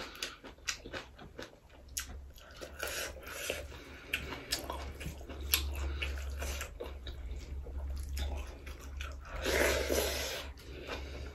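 Close-up eating sounds of a person eating rice with her hand: wet mouth clicks, lip smacks and chewing, with soft sounds of fingers mixing rice on the plate. About ten seconds in comes a louder wet sucking sound as she puts a handful into her mouth.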